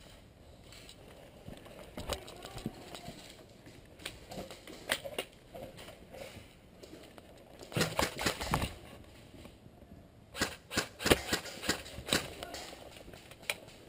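Airsoft gunfire: sharp snapping shots in short irregular clusters, the densest about eight seconds in and again from about ten to twelve seconds in.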